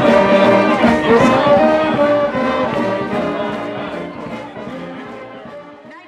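Background music with sustained chords, fading out over the second half.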